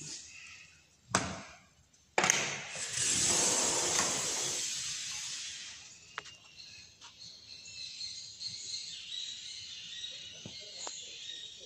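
A sharp knock, then a sudden loud rushing noise that fades away over about four seconds. After it comes a steady high chorus of insects and birds with a few small knocks.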